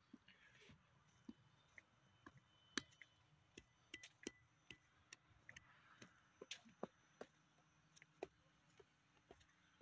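Faint, irregular clicks and ticks, several a second and uneven in strength, over a near-silent background.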